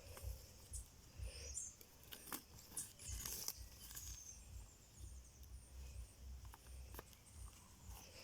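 Faint outdoor ambience: scattered short, high bird chirps and a few light clicks over an uneven low rumble of wind on the microphone.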